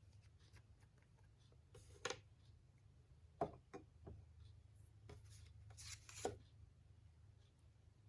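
Faint desk handling sounds: a few light clicks and short scratchy rubs, the largest about two, three and a half and six seconds in, as an ink sample is opened and swatched onto paper.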